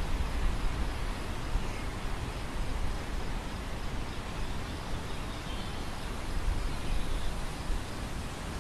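Wind blowing over an open grain field: a steady rushing hiss with a gusty low rumble of wind on the microphone.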